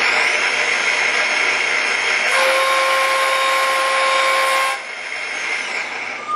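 CNC lathe's live-tooling spindle running at speed while an 8-flute insert thread mill cuts a tapered thread into stainless steel pipe, dry, with no coolant. The cut begins about two seconds in with a steady singing tone over the machine noise and stops a little before the end, leaving the spindle running more quietly.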